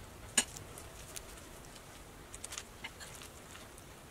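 Faint sticky handling of an oatmeal-and-mashed-banana dough as gloved hands and a metal spoon scoop and roll it into balls in a bowl. There is one sharp click about half a second in and a few small clicks later.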